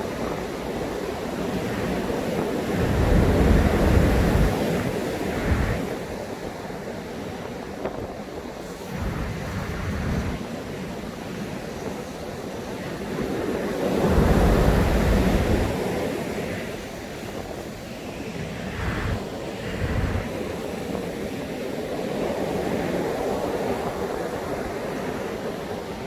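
Heavy surf breaking on a sandy beach in strong wind, with two big waves surging loudest about three seconds in and again about fourteen seconds in. Gusts of wind buffet the microphone with low rumbles.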